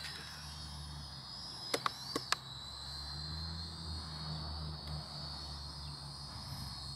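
Small quadcopter drone flying at a distance, its propellers giving a thin, steady high whine that drifts slightly in pitch. A few sharp clicks come about two seconds in.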